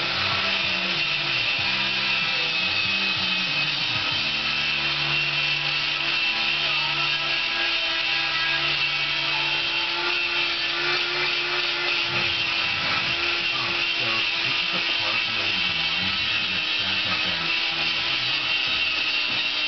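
Handheld power grinder running steadily against the steel frame of a livestock chute, giving a constant whine over a grinding hiss.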